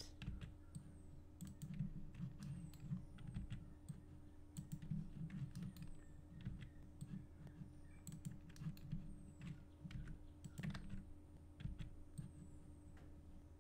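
Computer keyboard keystrokes and mouse clicks at an irregular pace, over a steady low electrical hum.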